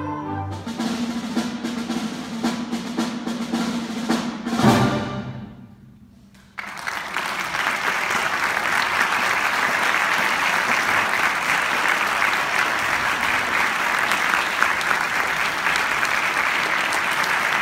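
Wind band playing the closing bars of a march, ending about five seconds in on a loud final chord with a drum hit that rings away. After a brief lull the audience starts applauding suddenly and keeps clapping steadily.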